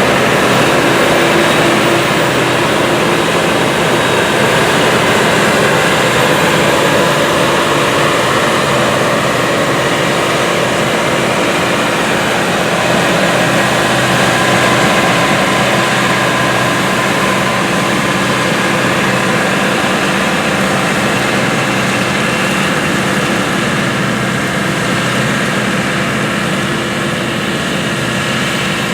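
Heavy diesel harvesting machinery running steadily under load: a constant engine hum with a dense mechanical rushing over it.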